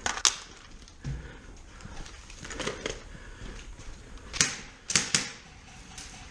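Sharp plastic-and-metal clicks and clacks of a Classic Army ML10 airsoft rifle being handled during a reload. They come as a handful of separate strikes: the loudest right at the start, more around the middle, and a pair about four to five seconds in.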